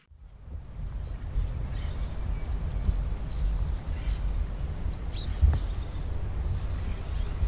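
Birds chirping in short, high, repeated calls over a steady low rumble of outdoor background noise, fading in at the start.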